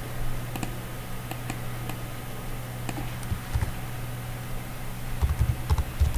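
Computer keyboard typing: a few scattered keystrokes, then a quicker run of keys near the end, over a steady low hum.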